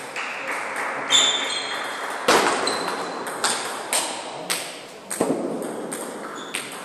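Table tennis rally: the celluloid ball clicking sharply off the paddles and the table, with a hit every half second to a second.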